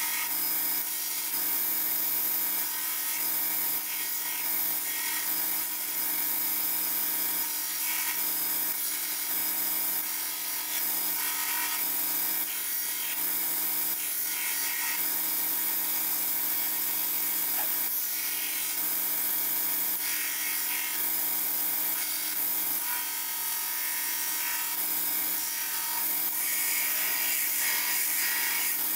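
Belt grinder running, with the steel of a forged san mai knife blank (Damascus sides, wootz core) being ground steadily against the abrasive belt to clean off the forged surface.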